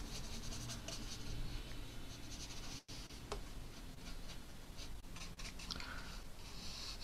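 Faint brushing of a large watercolour brush laying dark paint across sketchbook paper.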